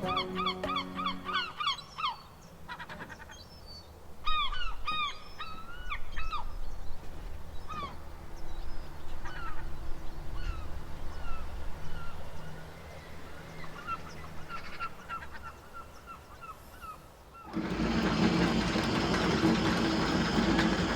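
Birds calling in rapid series of honking, arched notes, thinning to scattered single calls. Near the end the sound cuts suddenly to a loud, dense stretch, probably music.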